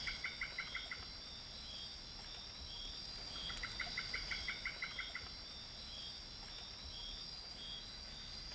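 Night rainforest chorus: a steady high insect drone with soft regular chirps. Twice a fast run of chirps, about eight a second, comes in: once at the start and again around four seconds in.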